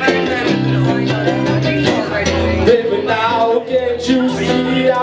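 Live band music: acoustic guitars and electric bass playing, with a male singer's voice, strongest in the second half.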